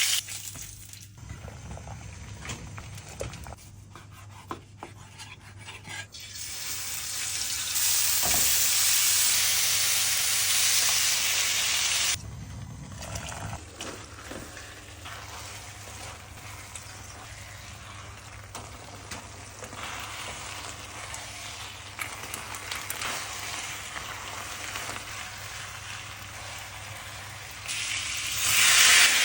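Food sizzling as it fries in a pan, with the hiss swelling louder for a few seconds partway through. Scattered light clicks from stirring or turning the food run through it.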